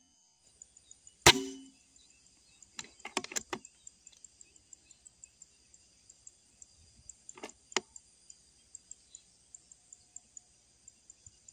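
A PCP air rifle fires once about a second in: a single sharp crack with a short ring. It is followed by a quick run of light clicks, then two more clicks near the middle, over a faint high ticking in the background.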